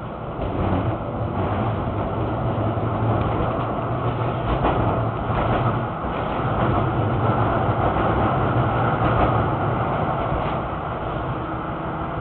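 Tram running along a street, heard from inside the car: a steady rumble of steel wheels on the rails, with a low motor hum. It grows louder about a second in and is broken by scattered clicks.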